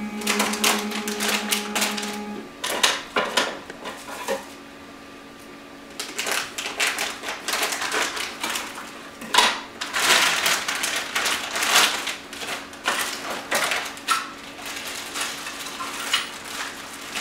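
Clear plastic packaging crinkling and rustling as a 3D-printer filament spool is unwrapped, with irregular clicks and knocks from the spool and plastic parts being handled. A steady low hum stops about two and a half seconds in.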